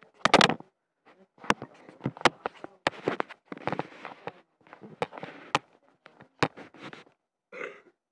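Handling noise from a tablet that is recording while it is picked up and moved: a string of sharp knocks and clicks mixed with short rustles, loudest just after the start.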